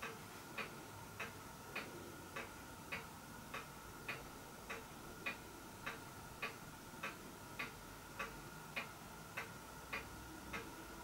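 Faint, even ticking, a little under two ticks a second, over a faint steady hum.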